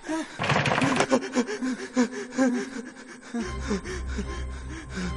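A man gasping and panting in fright, short voiced breaths coming a few a second. About three and a half seconds in, a low droning music score comes in under it.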